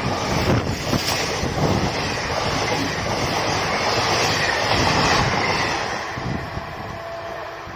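Express passenger train running past at full speed, its wheels clattering over the rail joints; the sound fades from about six seconds in as the train goes by.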